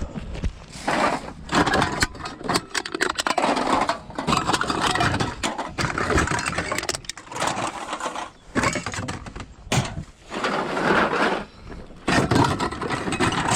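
Cans and other recyclables clattering and rattling as they are handled and gathered from a recycling bin, in irregular bursts with short pauses.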